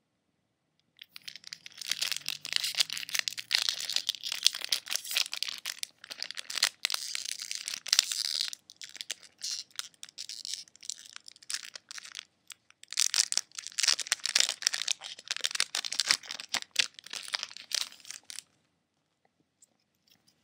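Foil wrapper of a Pokémon Base Set booster pack crinkling and tearing as it is opened, in two long spells with a short pause about twelve seconds in.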